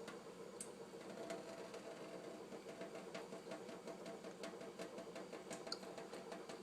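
A kitten lapping water from a faucet: faint, quick soft clicks, about three to four a second, over a low steady hum of running water.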